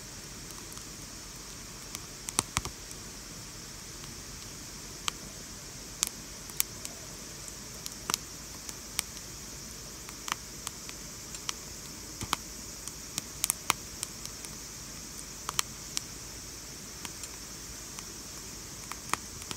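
Split firewood and charcoal briquettes burning in a small stainless fire grill, crackling with irregular sharp pops, one or two a second, over a steady hiss.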